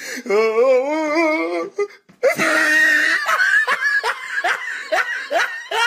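A person laughing: a drawn-out, wavering laugh, then a louder burst of laughter that breaks into a run of short 'ha' pulses, about two or three a second.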